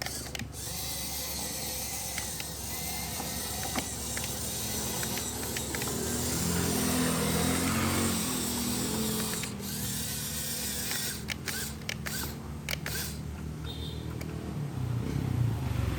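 Small geared motor drive of a miniature Kubota DC-105X combine harvester model whirring and clattering, rising in level and pitch about six seconds in, then easing back.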